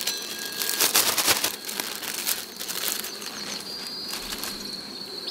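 Thin plastic bag crinkling and rustling as a slab of drone comb is pushed into it. The crackling is densest in the first couple of seconds, then thins to scattered rustles.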